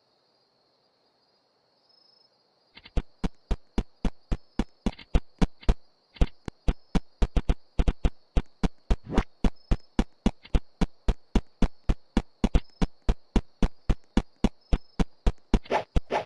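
A steady high-pitched whistle, joined about three seconds in by a fast, even run of loud sharp clicks, several a second.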